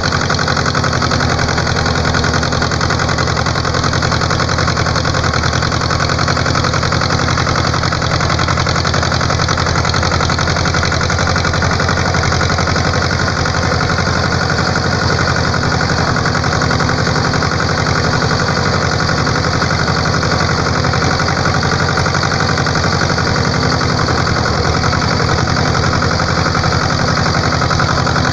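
Heavy rain falling steadily, a loud, even hiss without let-up.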